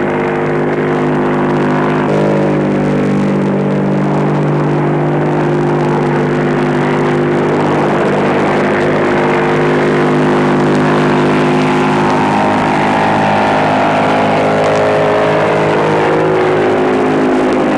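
Convair XFY-1 Pogo's turboprop engine driving its contra-rotating propellers at takeoff power during a vertical liftoff and climb: a loud, steady drone of several held tones over a rushing noise. Past the middle the higher tones bend in pitch for a few seconds.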